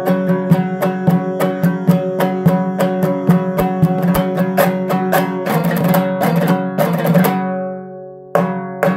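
Instrumental closing bars of a song on a plucked string instrument: quick notes about four a second over a held low tone, then several strummed chords that ring and fade, with one last strum near the end.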